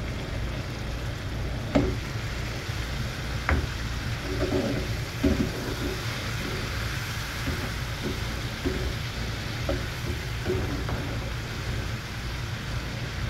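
Egg masala gravy sizzling steadily in a pan, freshly thinned with a little water, while a spoon stirs and turns the boiled eggs and knocks against the pan now and then, most sharply in the first half.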